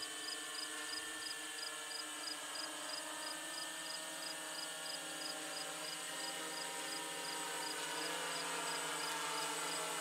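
Eye-Droid 6 hexacopter's electric motors and propellers humming steadily as the craft climbs, getting slightly louder in the second half. Over it an insect chirps, a short high chirp repeating about two and a half times a second.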